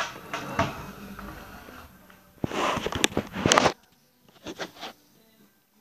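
Close rustling and scraping with a few sharp clicks: handling noise of the camera while it is moved about with the picture dark. The noise stops about four seconds in, followed by a couple of fainter rustles.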